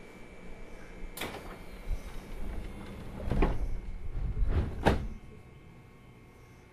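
Knocks and thuds inside a JR 205 series commuter train car, over a steady electrical hum. There is a sharp click a second in, then a low rumble with two sharp bangs just before the five-second mark.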